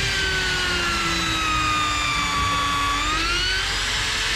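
Electric drill boring into a purpleheart plank, its motor whining steadily. The pitch sags slowly as the bit bites, then rises again about three seconds in.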